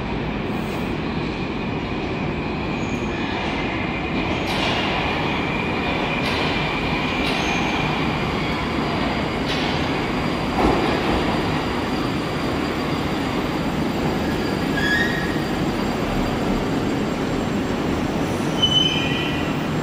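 Moscow Metro train running along the station, with a steady rumble, high-pitched wheel squeal from about three to nine seconds in, a few short squeals later, and a few clacks of wheels over rail joints.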